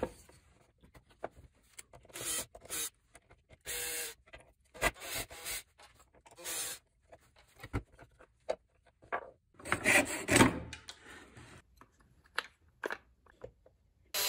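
Plywood parts and wooden gears of a hand-built gear mechanism rubbing, scraping and knocking against each other as they are handled and a side plate is lifted off. The sounds come in irregular bursts with small clicks between them, the longest scrape about ten seconds in.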